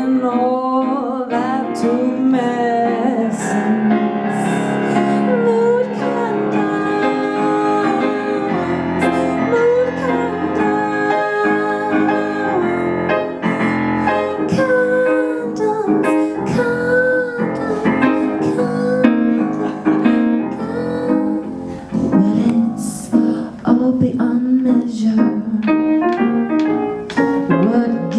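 A woman singing a musical-theatre song into a microphone with live piano accompaniment.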